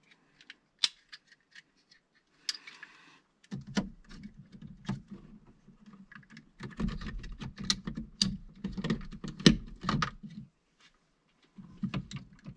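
Plastic clip-on current sensors being handled and snapped shut around the main service wires in a home electrical panel: a run of small sharp clicks and plastic rattles, with a denser stretch of clicking and rubbing from about three and a half seconds in to about ten seconds.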